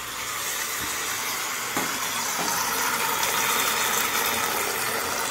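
Water from a handheld sprayer running steadily into the plastic water tank of a portable evaporative air cooler, a continuous hiss that gets a little louder about two seconds in.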